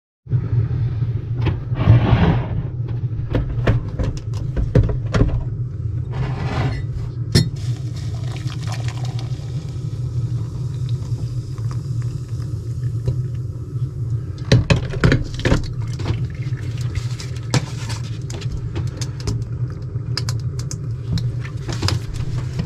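A glass coffee carafe and a metal spoon clinking against a ceramic mug as coffee is poured into it, with scattered knocks of the carafe being handled, over a steady low hum.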